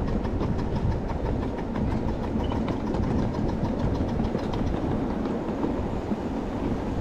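A 7½-inch gauge live-steam miniature train under way, heard from a riding car: a steady rumble of small wheels on the track with a quick run of faint clicks.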